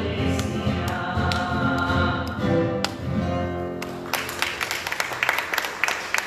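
Choir singing the closing hymn, ending about four seconds in, followed by a dense crackle of sharp irregular clicks.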